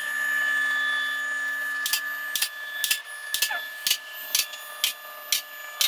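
Vehicle lift raising a car: the lift's electric hydraulic pump motor runs with a steady hum. From about two seconds in, the safety locks click past their stops about twice a second.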